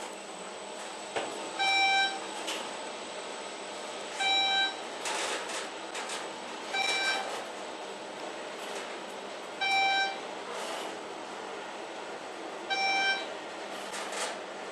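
An elevator's electronic beep sounding five times, a short pitched tone about every three seconds, over a steady hiss and hum.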